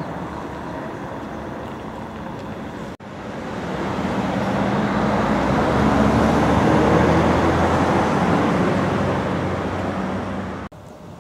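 Street traffic noise, then, after an edit cut, a motor vehicle passing close by: its engine and tyre noise swell to a peak in the second half and fade again before the sound cuts off sharply near the end.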